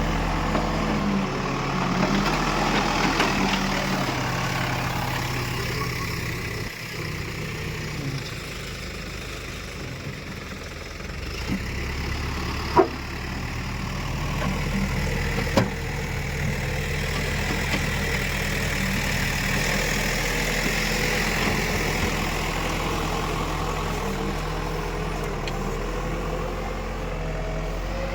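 Escorts Digmax backhoe loader's diesel engine running as the machine works, its load and loudness rising and falling. Two sharp knocks come about halfway through.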